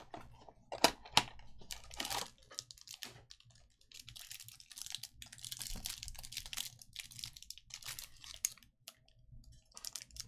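Trading cards being handled and flipped through: irregular quick clicks and rustling as cards slide against one another, with two sharp snaps about a second in.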